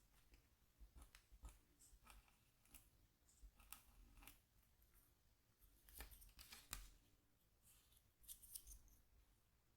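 Scratch tool scraping lines into a scratchboard's coating: soft, irregular short strokes, with a quicker cluster of strokes about six seconds in and again near eight seconds.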